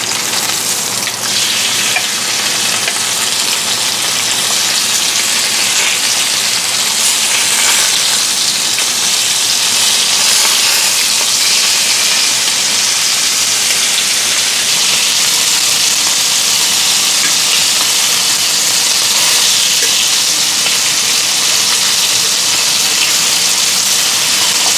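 Skin-on chicken steaks frying in a little hot oil in a wok: a steady sizzle.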